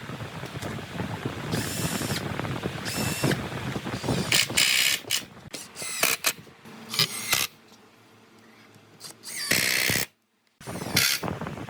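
Woodworking tool sounds: a run of short mechanical clicking and rasping bursts from hand and power tools working wood. The sound cuts out abruptly for a moment about ten seconds in.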